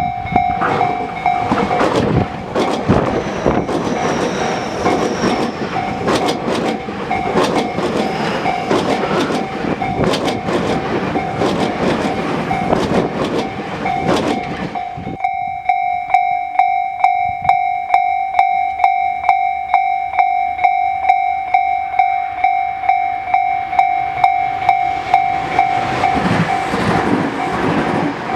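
Japanese level-crossing warning bell ringing in rapid, even dings while a Tobu Tojo Line electric train runs past with its wheels clattering over the rail joints. About halfway through the train noise cuts off and the crossing bell keeps ringing on its own, and train noise starts rising again near the end.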